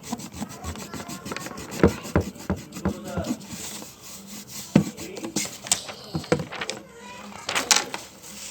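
Pencil and eraser scratching and rubbing on paper, with scattered small knocks against the table.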